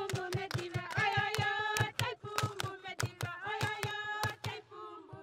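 Group singing with steady hand clapping, about four claps a second, fading out near the end.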